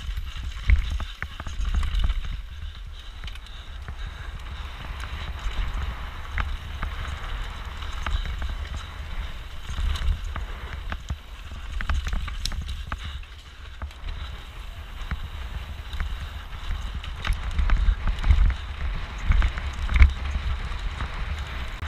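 Mountain bike ridden fast down a rough trail, heard from a camera mounted on the rider. The bike rattles throughout with many sharp knocks and clicks, over tyre noise, and wind rumbles on the microphone.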